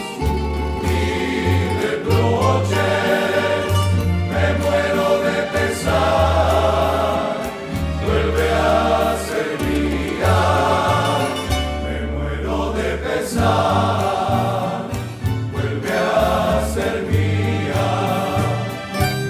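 A bolero played by a rondalla, a Colombian string ensemble, in a serenade arrangement, with held bass notes under the melody.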